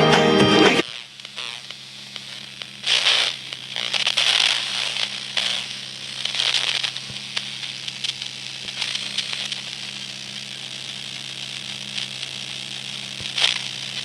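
iPhone 17 Pro Max loudspeaker giving out static: a hiss and crackle over a steady low hum, rising in surges of hiss for a few seconds and again briefly near the end. It is a fault that shows while the phone is charging. Music cuts off about a second in.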